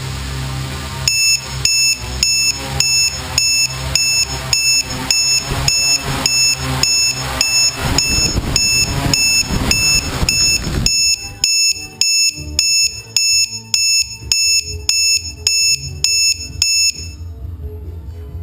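Electronic alarm beeping rapidly and evenly, about two short high beeps a second, over a steady whirring that drops away suddenly about eleven seconds in. The beeping stops a second or so before the end.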